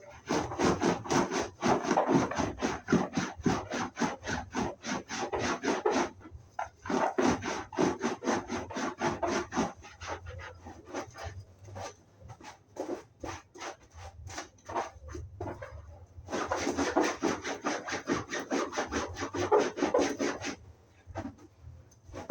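Quick back-and-forth scrubbing strokes on a seat's upholstery, several strokes a second, in long runs with a short pause about six seconds in and slower, scattered strokes in the middle.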